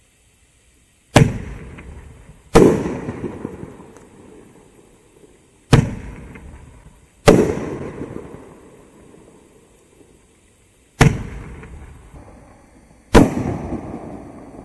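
Winda Jellyfish Aquarium 9-shot fireworks cake firing: six sharp bangs in three pairs, each pair about a second and a half apart, with a tube's launch thump followed by the shell breaking overhead. Each bang trails off over a second or two.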